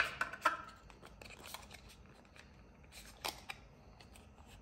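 Handling noise from a coiled USB charging cable and the cardboard phone box and its paper tray as the cable is put back in: a burst of sharp clicks and rustles at the start, a few light ticks, then a couple more clicks about three seconds in.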